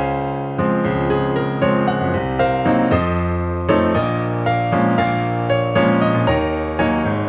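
Solo piano music: a piano cover of a pop song, with a melody struck over held bass notes and chords.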